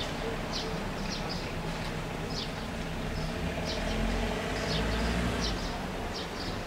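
Outdoor ambience: a steady noisy rumble that swells about four to five seconds in, with small birds chirping in short, repeated calls throughout.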